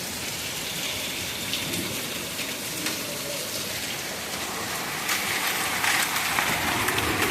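Heavy rain and hail pelting down in a thunderstorm: a steady dense hiss with many small sharp hits, growing heavier about five seconds in.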